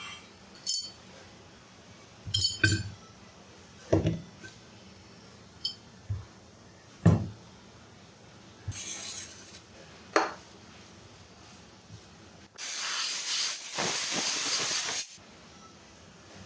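Metal parts and tools clinking and knocking during work on a water pump motor, with a short spray hiss and then a longer one of about two and a half seconds.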